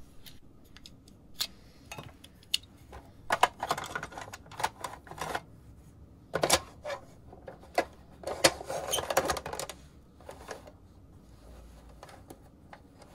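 Plastic clicks and clacks from a 1974 Hasbro Ricochet Racers toy gun as its bolt, safeties and foregrip are worked, with a sharper snap about six and a half seconds in and a quick run of clicks a couple of seconds later.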